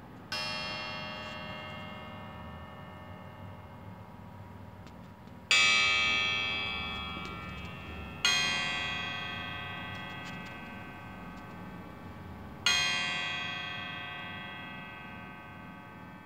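Four resonant, bell-like metallic strikes several seconds apart, each ringing on and slowly fading, the second the loudest; a faint low hum runs underneath.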